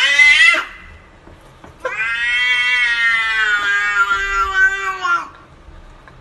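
Domestic cat meowing: a rising call that ends about half a second in, then one long, drawn-out meow of about three seconds that drops in pitch at the end.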